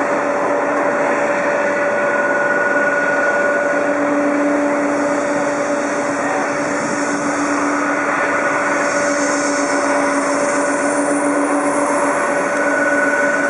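Jet airliner engines at taxi idle: a steady rush with a constant hum and a high whine that fades in and out.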